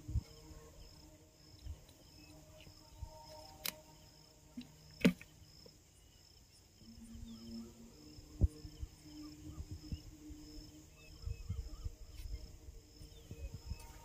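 Outdoor ambience with an insect, cricket-like, chirping in an even, high repeating pulse, over low wind rumble on the microphone. A few sharp clicks stand out, the loudest about five seconds in.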